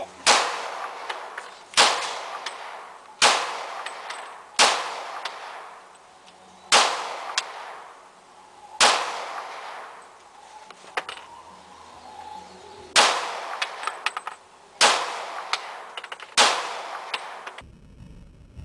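Glock 22 .40 S&W pistol fired about ten times at an uneven pace, with a longer pause midway. Each shot is a sharp crack followed by a short ringing echo under the range's covered roof.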